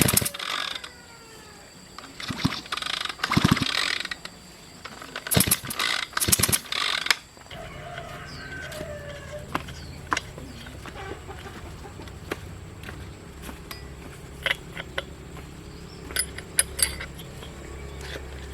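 Metal clattering from hand-tool work on a bicycle, coming in loud bursts for the first seven seconds or so. After that there is a steady low hum with scattered light clicks.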